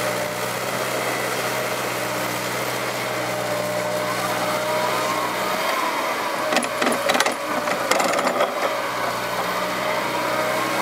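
Liebherr 906 crawler excavator's diesel engine running steadily under load, with a whine that rises and falls as the hydraulics work. Partway through, a burst of clanks and knocks comes from the bucket and boom as a scoop of soil is dug and lifted.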